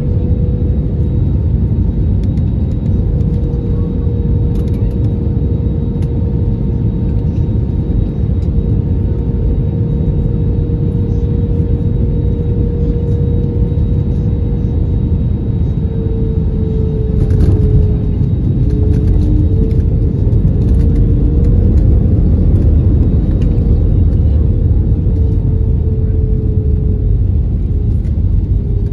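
Cabin sound of an Airbus A321neo with Pratt & Whitney PW1133G geared turbofans landing: a steady roar with a humming engine tone that wavers about halfway through. A brief jolt comes about two-thirds of the way in as the wheels touch down, then a somewhat louder rush on the rollout with the spoilers up and the engines in idle reverse.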